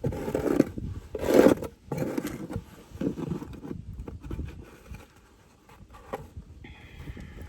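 Scraping on beehive boards as they are cleaned out: several strong strokes in the first couple of seconds, then lighter, sparser scrapes. A short high steady tone sounds near the end.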